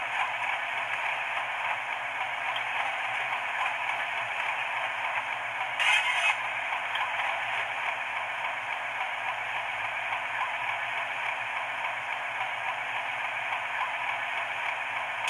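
Diesel engine sound of a Class 31 locomotive played by a DCC sound decoder through a model's small, thin-sounding speaker, running steadily. About six seconds in, a short, sharp hiss cuts in briefly.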